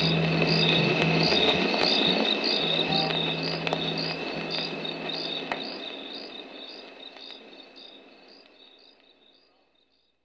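The end of a music track fading out: a high chirping pattern about two a second over a low held drone. The drone stops about halfway, and the whole fades to silence near the end.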